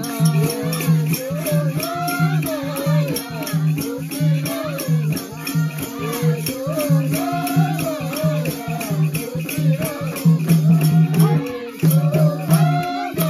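Nepali folk dance song: a sung melody over a steady rattling shaker rhythm and a regular low beat, about three beats a second.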